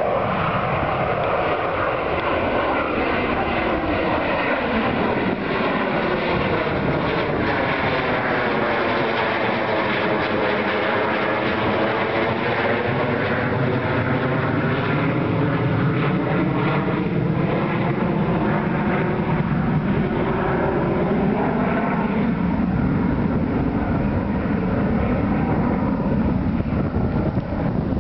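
DC-9 jet airliner's rear-mounted Pratt & Whitney JT8D turbofans running at climb power as it passes overhead and away after takeoff. The sound is a loud, steady jet noise with a hollow, phasing sweep that falls and then rises again as the aircraft goes over.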